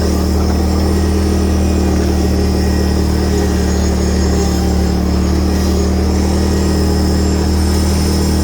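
John Deere F687 zero-turn front mower's 20 hp Kohler Command engine running steadily.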